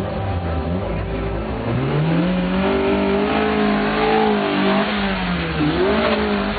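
Twin-cam car engine revved hard as the car spins donuts: the pitch climbs about two seconds in, holds high, falls near five seconds, then climbs again near the end.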